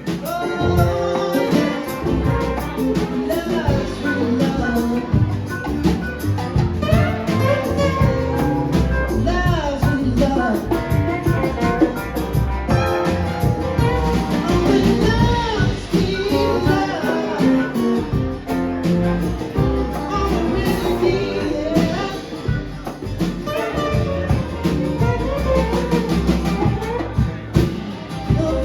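A band playing a song: a singer over guitar and drums.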